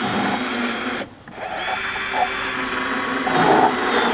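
Cordless drill/driver running screws into a Jeep bumper to hold a light bar bracket. It whines steadily, stops briefly about a second in, then runs again for about three seconds.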